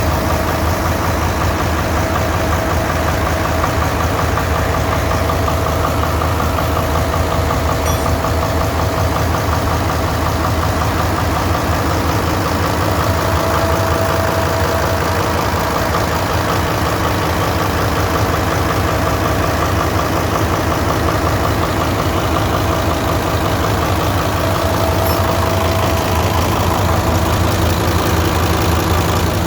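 Nissan 10-cylinder diesel engine of a pinisi ship running steadily, with a fast, even pulsing beat and a low hum.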